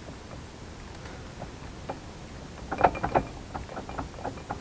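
Light metallic clicks and clunks from a Lada Niva's intermediate driveshaft being rocked and twisted by hand, taking up the rotational play in its joints and splines: a quick cluster about three seconds in, with a few fainter ones near the end. The play comes from a worn spline joint.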